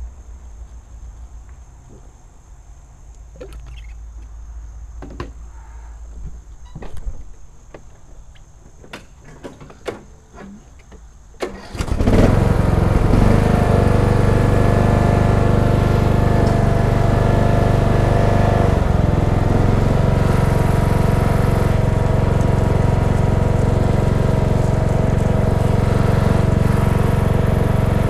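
A few scattered clicks and knocks, then about twelve seconds in a Cub Cadet XT1 riding mower's engine starts suddenly and settles into a steady run.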